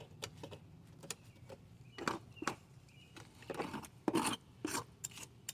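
Rotten wood in a window frame being scraped and picked out by hand with a tool: irregular scrapes and crumbling knocks, more frequent and louder from about two seconds in.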